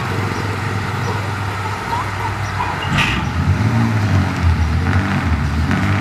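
Heavy diesel engine running, its note wavering up and down in pitch in the second half, with a short hiss about three seconds in.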